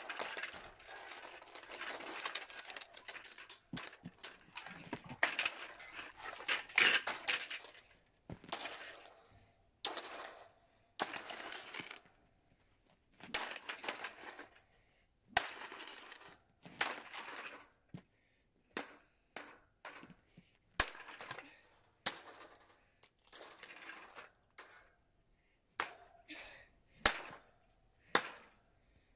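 Plastic stand fan being broken apart: crunching and cracking of its plastic parts, dense for the first several seconds, then in irregular short bursts with sharp snaps.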